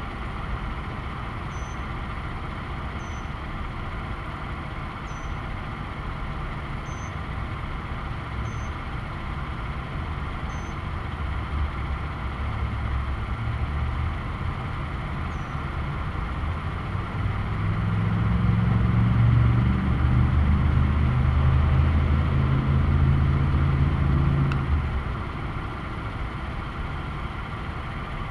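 Steady road-traffic noise, with a motor vehicle's low engine rumble building from about twelve seconds in, loudest for several seconds, then dropping away near the end. Faint short high chirps come every second or two in the first half.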